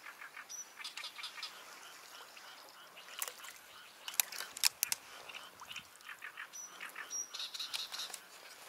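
Small birds chirping over and over, with a few sharp clicks about three to five seconds in.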